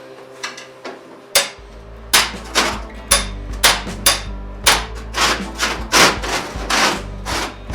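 Repeated hammer blows on metal, about two a second, starting about a second and a half in, over background music.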